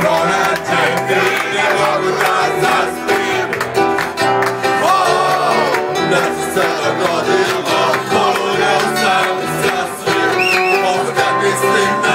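A man singing a pop-folk song live into a microphone over amplified instrumental backing, with a few held, wavering notes.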